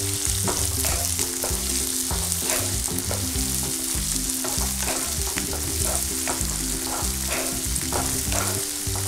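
Chopped onion, spring onion greens and peanuts sizzling in hot oil in a non-stick frying pan, stirred with a wooden spatula that scrapes across the pan about twice a second.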